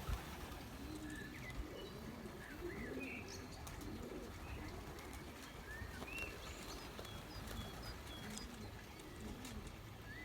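Racing pigeons cooing, low coos repeating one after another, with short high chirps scattered over them.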